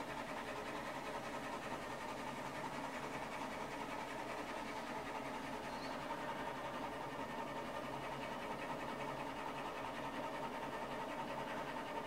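Epilog Helix laser engraver running a raster engraving job on its rotary attachment: the laser head's carriage shuttles rapidly back and forth, making a steady mechanical whirring with a constant whine.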